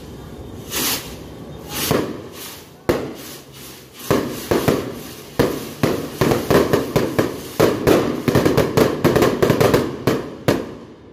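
Sky rockets (kwitis) firing in quick succession. A run of sharp pops and cracks starts sparse, comes thick and fast, several a second, from about four seconds in, and stops shortly before the end.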